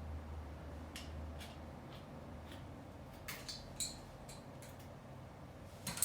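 Scattered light metallic clicks and clinks from parts and hand tools being handled, with a sharper knock at the very end.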